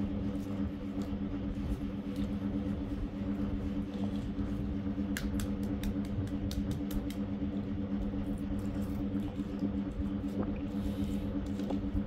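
Boiled eggs being peeled by hand: scattered small clicks and crackles of eggshell, over a steady low mechanical hum.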